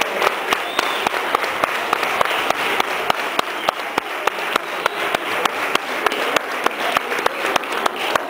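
Audience applauding, with sharp claps standing out at a steady rate of about three or four a second.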